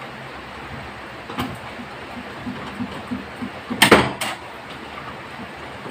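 Handling noises from the indoor unit of a floor-standing inverter air conditioner as wiring is worked around its fan grille and sheet-metal panel: a knock about a second and a half in, light ticking, then a loud rattle just before four seconds in and a smaller one right after.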